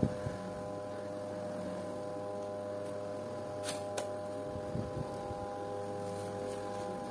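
A steady machine hum of several constant tones, with two sharp clicks a little past the middle and a few soft knocks shortly after.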